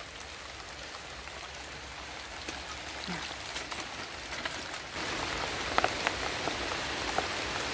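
Heavy rain falling: a steady hiss with scattered drop ticks, getting louder about five seconds in.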